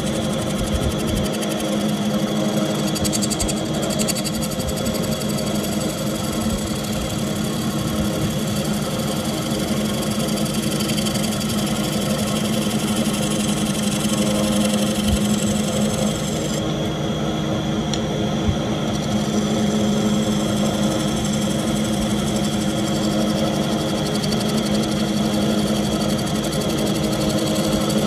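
Wood lathe running steadily while a bowl gouge cuts the spinning Goncalo Alves bowl: a continuous machine hum with the noise of the tool shaving the wood. The highest part of the sound thins out a little past halfway.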